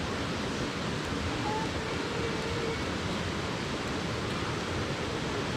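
Steady rushing of a waterfall, water pouring and splashing without a break, with faint distant voices in it.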